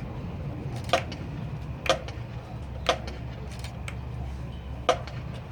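Sharp clicks about once a second, evenly spaced like a tempo count, over a low steady rumble of a stadium crowd.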